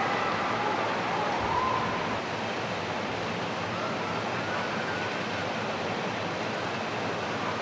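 Heavy rain pounding down: a steady, even hiss of downpour.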